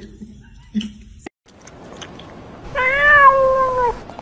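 Domestic cat giving one long, drawn-out meow about three seconds in, dipping in pitch at its end, after a few soft knocks.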